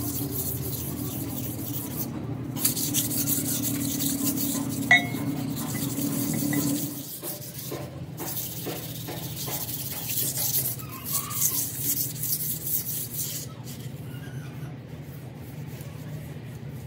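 Metal being scraped and rasped during repair work on a crusher bearing, over a steady hum that drops away about seven seconds in. There is one sharp metallic strike with a brief ring about five seconds in, and a run of rasping strokes near the middle.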